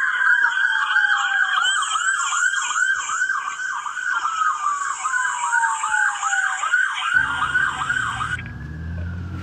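Police car siren sounding a fast yelp, with a second siren tone gliding slowly down in a long wail beneath it. The yelp stops near the end and a new wail starts high and falls. A low engine rumble comes in about seven seconds in.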